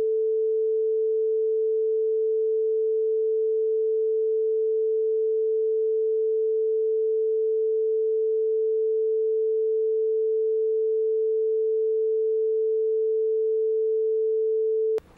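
A steady, loud single-pitch sine tone, a censor bleep that masks a redacted passage of the recording. It cuts off sharply near the end.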